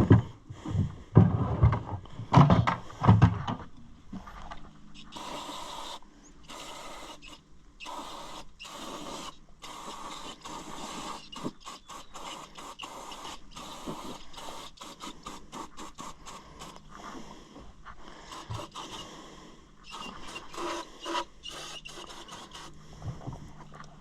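Irregular scraping, rattling and knocking of hands working on tractor parts, with a few louder sounds in the first few seconds.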